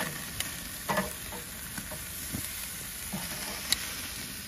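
Teriyaki-marinated ribeye steaks sizzling as they sear on a charcoal grill's wire grate: a steady hiss with scattered sharp pops and clicks, the loudest near the end.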